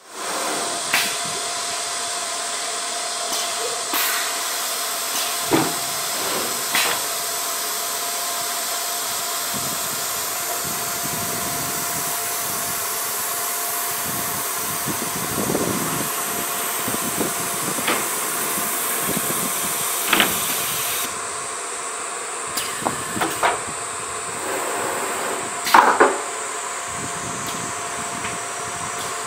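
CNC router with an automatic loading table running: a steady hiss over a constant hum, broken by scattered clunks and knocks as a board is pushed from the scissor-lift table onto the router bed. The high hiss drops away about two-thirds of the way through, and a quick cluster of knocks comes near the end, the loudest of them last.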